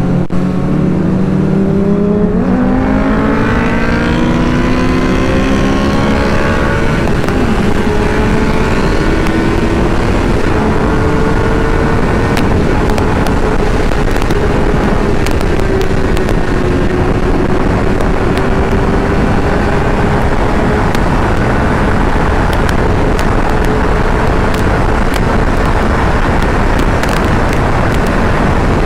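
Honda CBR600RR's inline-four engine at full throttle, its pitch climbing in steps through the gears over the first seven seconds, then held high and nearly steady near top speed. Heavy wind rush runs under it.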